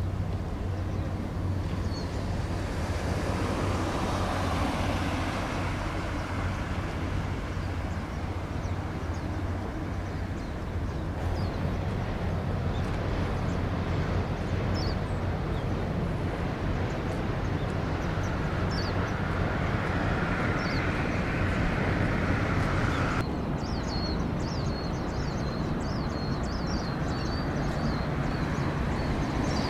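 Steady low engine drone and traffic noise with no voices. The sound shifts abruptly twice, about a third and three quarters of the way through, and short high chirps come through, most of them near the end.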